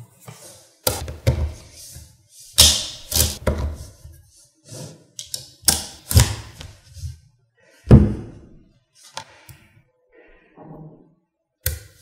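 Small magnetic balls clacking and snapping together as sheets of them are stacked and pressed into a cube: a series of sharp knocks and clicks at uneven intervals, the loudest about two and a half and eight seconds in.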